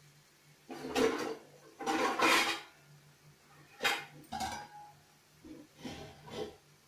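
A metal utensil clattering and scraping against a cooking pan in five short, irregular bursts.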